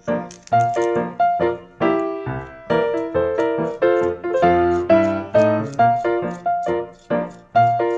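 Background piano music: a steady run of struck notes, several a second, each ringing and fading.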